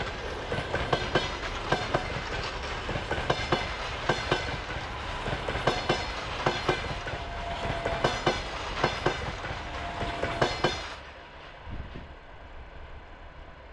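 Russian long-distance passenger coaches rolling past, their wheels clicking over rail joints in a steady, rhythmic clickety-clack over a running rumble. About eleven seconds in, the clatter drops away suddenly to a quieter, duller rumble of the train in the distance.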